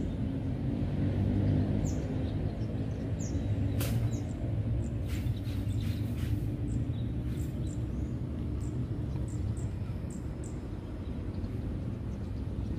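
Outdoor ambience: a steady low rumble with short, high bird chirps repeating over it, and a few faint clicks about four to six seconds in.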